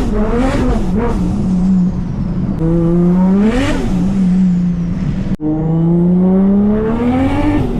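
Toyota Chaser JZX100's 1JZ inline-six engine under load, its revs climbing and dropping back several times. The sound breaks off abruptly for an instant about five and a half seconds in, then the engine note picks up again.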